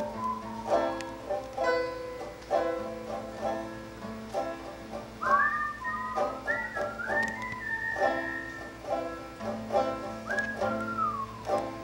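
Acoustic banjo picked in a steady run of plucked notes. A whistled melody slides over it from about halfway through and again near the end.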